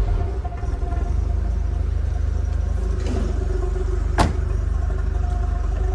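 Tofaş car's four-cylinder engine idling steadily through an aftermarket 'aragaz' exhaust, shortly after a cold start. A single sharp click is heard about four seconds in.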